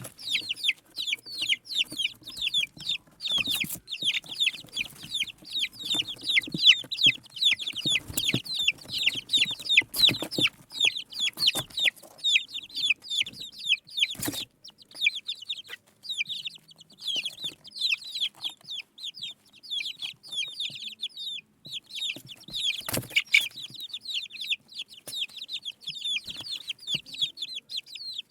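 A group of baby chicks peeping continuously, many high-pitched falling cheeps overlapping, with a few scattered knocks.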